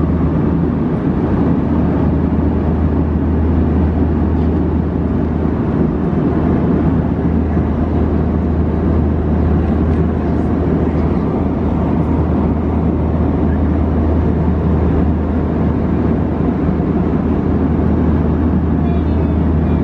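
Steady cabin noise of an Airbus A321 in flight: an even rush of airflow and engine noise with a constant low hum underneath, unchanging throughout.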